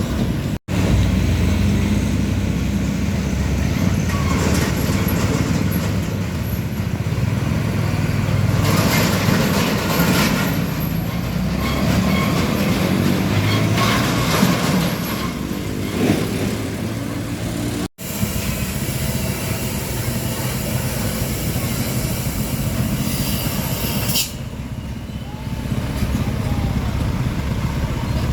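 Road traffic noise of heavy trucks passing: diesel engines rumbling and tyres on the road, in several clips cut together, with abrupt breaks about half a second in and about 18 seconds in and a sudden change a few seconds before the end.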